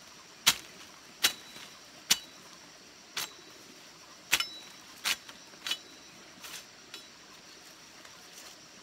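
Machete chopping at a hand-held branch to trim it into a stick: about nine sharp chops, unevenly spaced, some leaving a brief metallic ring from the blade.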